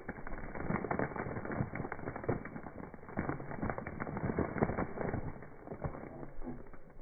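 Bare feet crushing dry cereal loops and crunchy snacks on rock: dense crackling crunches, many small snaps in quick succession.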